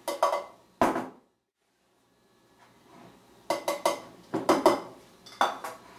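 Measuring cup and mixing bowl clattering while flour is scooped and tipped in: a few sharp knocks and scrapes at the start, a break of near silence, then a quick run of knocks and scrapes in the second half.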